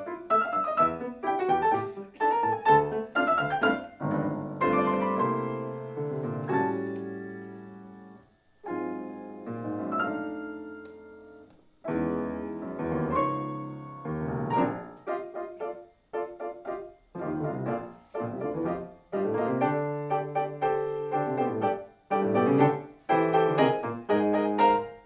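Grand piano played four hands as a duet: quick, detached notes and chords alternate with held chords that die away, with a couple of brief breaks between phrases.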